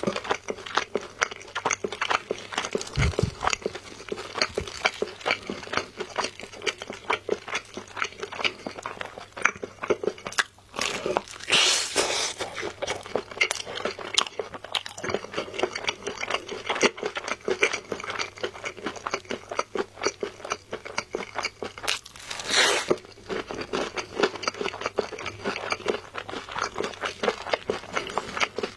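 Close-up eating sounds of sauced Korean fried chicken: a dense run of crisp crunches and chewing, with two louder, longer crunching bites about 12 seconds in and about 22 seconds in.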